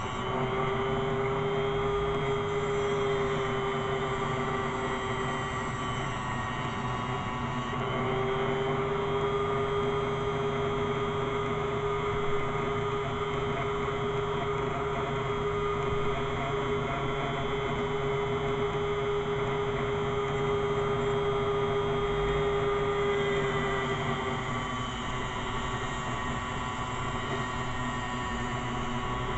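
Electric grinder running steadily with a constant whine while the back edge of a carbon-steel butcher knife blade is ground. The whine fades briefly about seven seconds in and again near the end.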